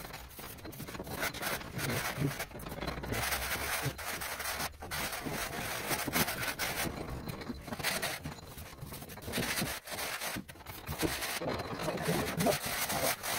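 A straight-edge and trowel scraping and rubbing across a crumbly sand-cement floor screed as it is levelled. The gritty scraping goes on and off with short breaks.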